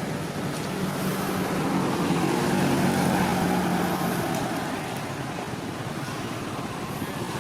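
A motor vehicle's engine passing by, growing louder then fading, over steady background noise.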